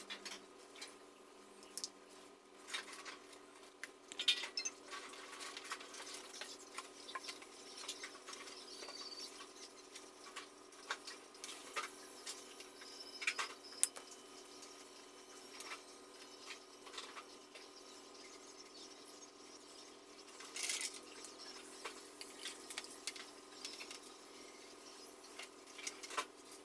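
Faint scattered clicks and taps, a few louder ones now and then, over a steady low hum.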